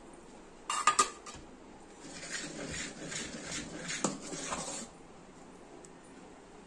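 A couple of sharp metal clinks about a second in, then a metal spoon stirring thick idli batter in an aluminium pot, scraping and clinking against the sides in repeated strokes for about three seconds.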